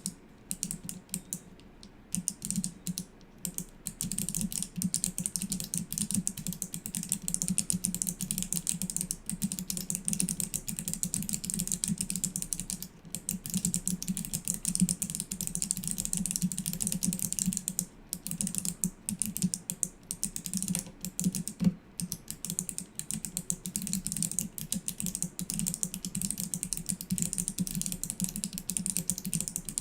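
Fast, continuous typing on a clicky mechanical keyboard with Kailh Box Navy switches and no keycaps fitted: a dense run of sharp clicks on bare switch stems, with a few brief pauses.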